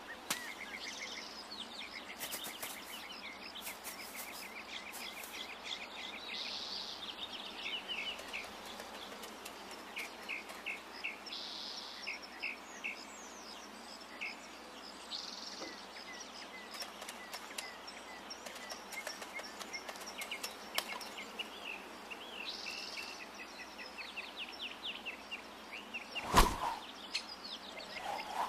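Many birds chirping in short repeated calls over a steady outdoor background hiss, with one sharp thud about two seconds before the end.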